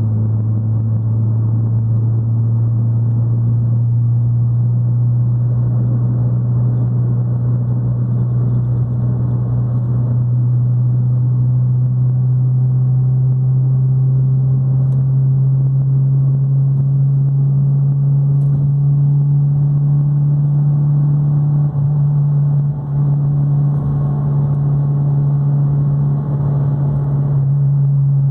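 Fiat Palio's engine and exhaust droning steadily at highway cruising speed, the deep note creeping slightly higher in pitch as the car gathers speed.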